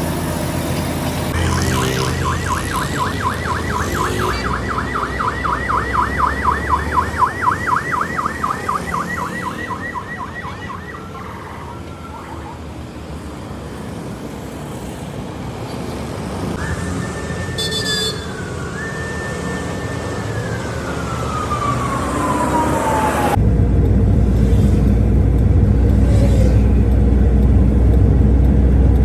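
Electronic siren in a fast yelp for about ten seconds. After a pause it sounds a held tone that dips, holds, then winds down in pitch. Near the end it gives way abruptly to a steady low engine rumble.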